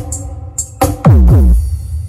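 Electronic dance music with a drum-machine beat, played loud through a sound system of folded-horn 'turbo' subwoofers and Joson-amplified speaker boxes as a bass soundcheck. About a second in, two deep bass hits fall steeply in pitch in quick succession, over heavy sub-bass.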